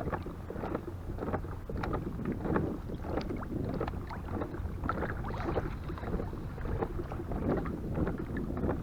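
Water lapping and splashing against the hull of a Hobie Revolution pedal kayak under way, with irregular little slaps and crackles. Wind buffets the microphone with a low rumble.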